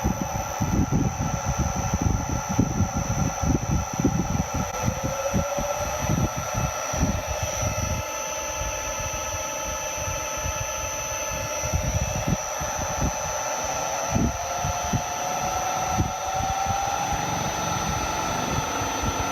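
Electric motor run from a variable frequency drive, whining as the drive frequency is turned up, its pitch rising twice, over a steady high-pitched drive whine and an uneven low rumble.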